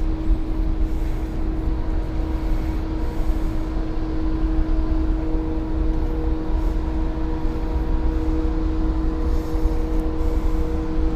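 Steady low rumble with a constant mechanical hum of several held tones; a second tone joins about halfway through.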